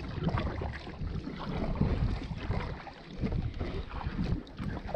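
Kayak paddle strokes splashing and dripping in lake water, with wind rumbling on the microphone.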